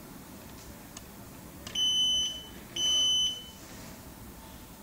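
The battery monitoring panel's buzzer beeps twice, two steady high beeps of about half a second each, roughly a second apart, with a couple of faint clicks before them.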